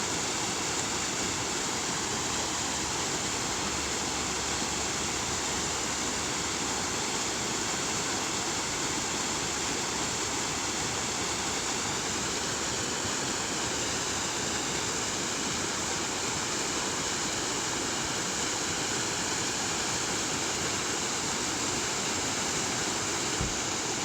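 Waterfall: water falling and rushing steadily, with no change in level.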